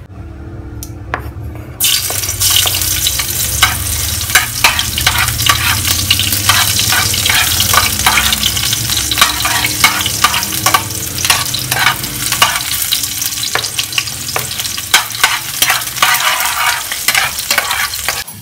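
Garlic and onion frying in hot oil in a stainless steel pan. The sizzle starts suddenly about two seconds in and stays loud, with the metal spatula scraping and clicking against the pan as it stirs.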